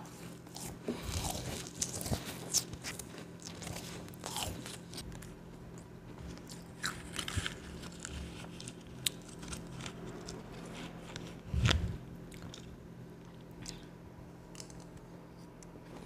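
Close-miked crunching and chewing of mouthfuls of powdery ice, a dense run of small crisp crunches with one loudest crunch a little under twelve seconds in, thinning out toward the end.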